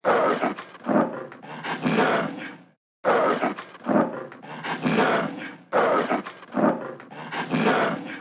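Tiger roaring in three rough bouts of about two and a half seconds each, with short silences between them.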